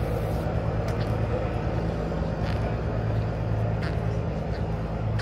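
An engine idling with a steady low hum, with a few faint clicks over it.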